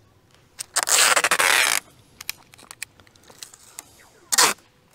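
Packing tape being pulled off its roll to bind a stack of soap bars: a loud tearing screech about a second long, a few faint crackles, then a second, shorter pull near the end.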